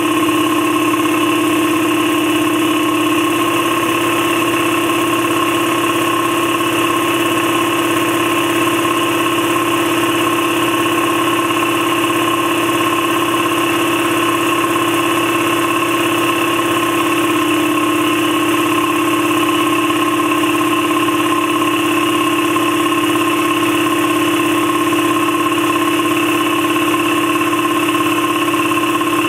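Campbell Hausfeld 60-gallon twin-piston air compressor running steadily under load, partway through pumping its tank up from empty toward its 135 psi shutoff.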